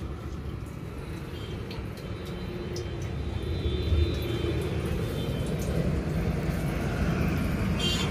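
A steady low engine rumble that grows a little louder, with a dull thump about four seconds in.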